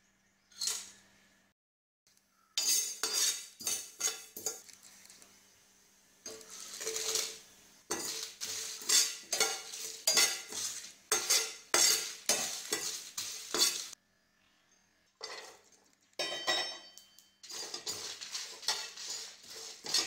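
Long metal spoon stirring and scraping whole spices and dried red chillies as they dry-roast in a non-stick pan, in runs of quick strokes with the seeds rattling against the pan, with a pause in the middle. A short clatter comes about a second in.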